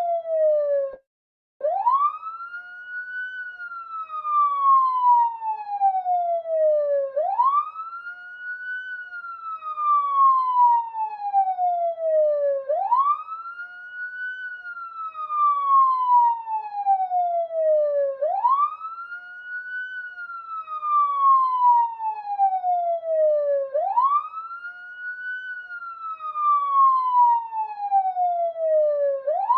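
Police siren in a long, slow wail: each cycle sweeps quickly up in pitch, then falls slowly, repeating about every five and a half seconds. The siren cuts out for a moment about a second in, then starts again.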